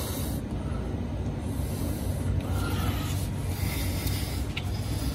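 Soft, steady rubbing as high-temperature grease is spread along the slide track of the new brake pad clips in a caliper bracket.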